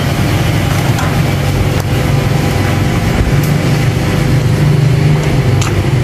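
An engine or motor running steadily: a loud, constant low rumble with a steady hum.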